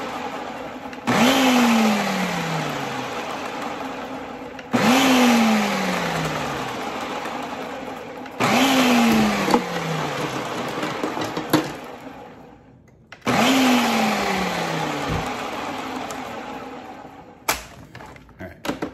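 Food processor pulsed four times, a few seconds apart, blending egg yolks and other Caesar dressing ingredients. Each pulse starts with a sudden burst of motor and blade noise, then the motor's pitch falls as it spins down. A few light clicks and knocks near the end.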